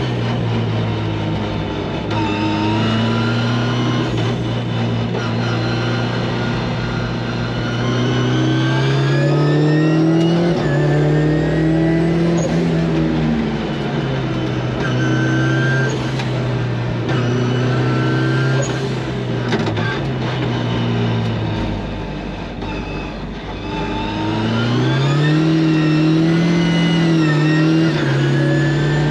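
Turbocharged 1.8-litre four-cylinder engine of a Mazda MX-5 track car heard from inside the cabin on a lap, its note climbing and dropping repeatedly as the driver works through the gears, with long climbs about eight seconds in and again near the end.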